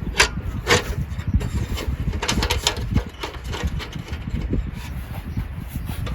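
Strong wind rumbling on the microphone, with scattered rustling and knocking sounds.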